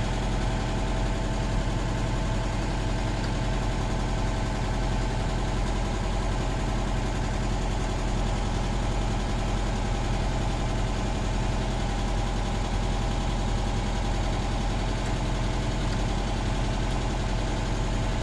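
1962 VW single-cab's air-cooled flat-four engine idling steadily.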